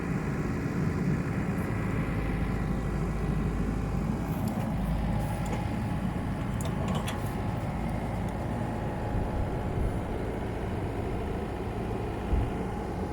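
Komatsu PC78UU excavator's diesel engine running steadily, with a few faint clicks in the middle and a short thump near the end.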